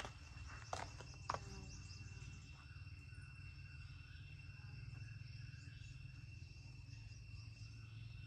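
Insects calling with one steady high-pitched tone, over a low outdoor hum. A few footsteps sound in the first second and a half.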